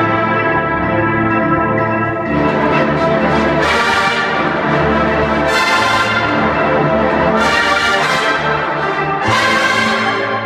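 A large drum corps brass line, trumpets and other bell-front horns, playing loud sustained chords together, swelling into brighter accents about four, six and eight seconds in and again near the end, then releasing the final chord.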